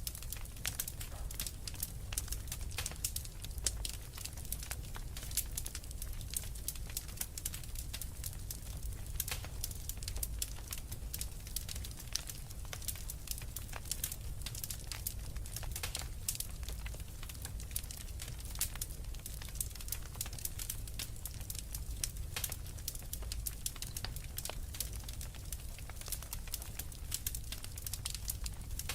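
Fireplace fire crackling: a dense, irregular stream of small sharp pops and snaps over a low, steady rumble.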